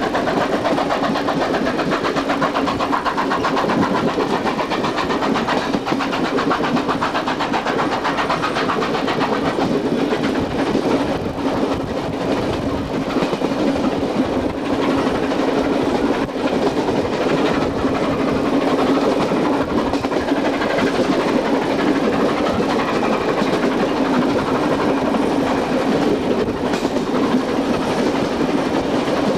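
Steam-hauled train running, heard from an open carriage window: loud, steady running noise of the train on the track, with the steam locomotive working at the head of the train.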